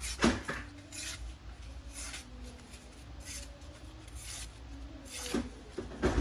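A sharp stainless-steel Global paring knife slicing through a sheet of paper in short hissing strokes, about one a second.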